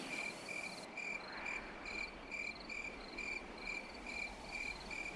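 Crickets chirping faintly in an even, repeating rhythm, about two to three chirps a second.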